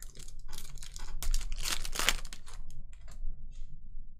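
Trading cards and foil card-pack wrappers being handled: crinkling and rustling that is densest and loudest in the middle, then dies away.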